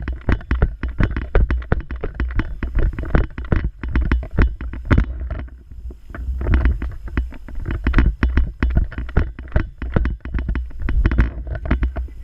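A person moving quickly on foot: a rapid, irregular run of footfalls and gear clatter over a heavy low rumble, as heard from a GoPro worn by the player, with a brief lull about halfway through.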